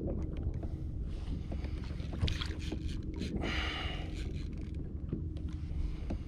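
Wind rumbling on the microphone and sea water washing against a kayak's hull, with two louder washes about two and three and a half seconds in and a few light clicks and knocks.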